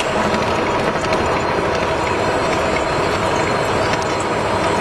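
Gear hobbing machine running, its hob cutting the teeth of a gear: a loud, steady machine noise with a couple of held tones.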